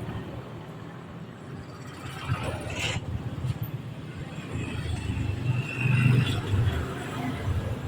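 A motor vehicle's engine rumbling, swelling louder around six seconds in, with a single sharp clack just before three seconds.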